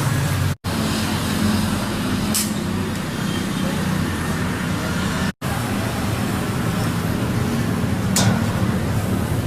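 Steady street traffic noise with a low engine rumble and two brief hisses, one about two seconds in and one near the end. The sound cuts out abruptly twice, shortly after the start and about halfway through.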